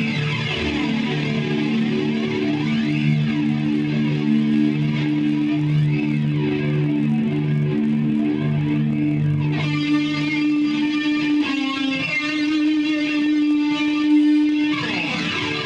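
Electric guitar playing long held notes and chords at a band's sound check, turning brighter and higher for a stretch about ten seconds in.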